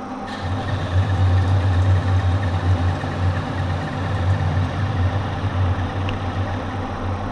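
Monarch metal lathe running, its spindle turning a 4140 steel bar with a steady low hum, while a cutting tool faces the end of the bar. A brighter hiss joins the hum a moment in and holds steady.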